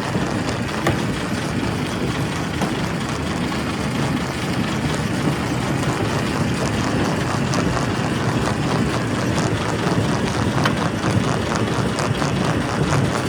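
Primary rock crusher running: a steady heavy mechanical rumble with many small knocks and clatters scattered through it.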